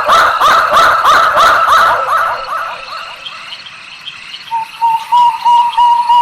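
Owl calls: a fast run of repeated calls that fades out about halfway, then a steady series of high, evenly repeated whistled toots near the end.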